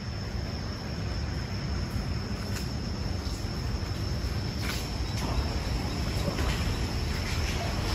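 Insects in the trees giving a continuous high-pitched drone on one steady tone, over a low rumble, with a few short faint chirps.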